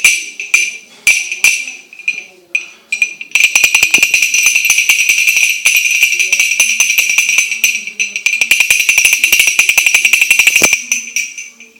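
A small hand-held toy being shaken, giving a bright, ringing metallic jingle. There are a few separate shakes at first, then about three seconds in comes fast continuous shaking that stops near the end.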